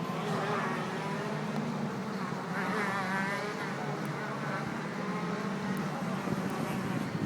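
Jet ski engines running with a steady buzz, and a higher whine that wavers up and down in pitch for a couple of seconds near the middle as the throttle is worked.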